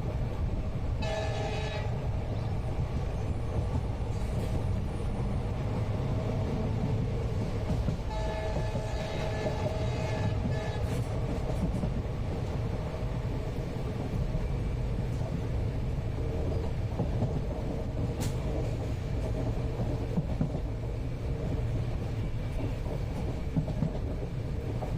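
Steady low rumble of a moving passenger train heard from inside the carriage. The locomotive's horn sounds twice: briefly about a second in, then for about three seconds from around 8 seconds.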